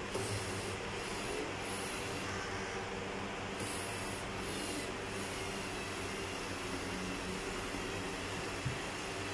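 Small electric motors and gears of a LEGO Mindstorms EV3 robot whirring as it drives and turns. There is a steady low hum under a higher hiss that starts and stops several times.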